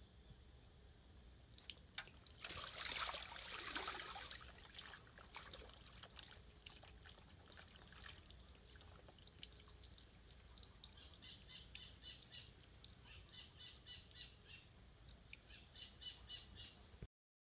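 Water sloshing and splashing in a metal tub as a Labrador puppy shifts and settles in it, about two and a half seconds in, followed by small drips. Birds chirp in short repeated groups in the second half.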